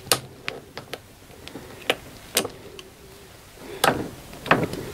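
Pliers clicking and knocking against the fuel-line hose clamp as it is worked loose: a scatter of short, sharp metal clicks.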